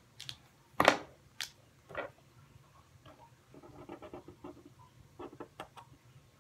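A few sharp clicks and taps in the first two seconds, the loudest about a second in. Then a felt-tip marker scribbles on paper in quick, short strokes.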